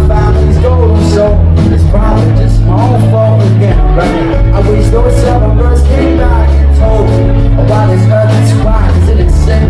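Background music: a song with held bass notes that shift every second or two and a melody over them.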